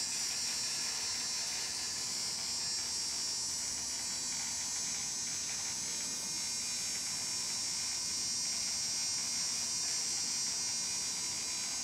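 Steady electric buzz with a high-pitched whine.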